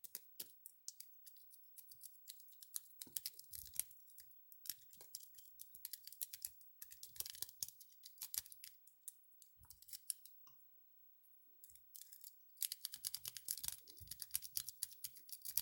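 Paper clip rake scraping and clicking against the pins of a cheap 40 mm padlock as it is raked in and out, in faint runs of fast tiny clicks with a short pause about three quarters of the way through.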